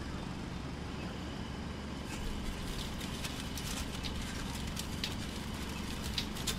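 Drilling rig's diesel engine running steadily, with irregular sharp metallic clicks and knocks from about two seconds in.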